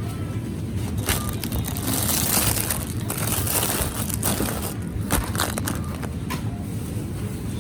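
Rustling handling noise with scattered sharp clicks, loudest about two to three seconds in, over a steady low hum.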